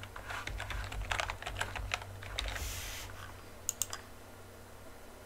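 Computer keyboard typing, a quick run of keystrokes for about two and a half seconds, followed a little later by a couple of sharp mouse clicks.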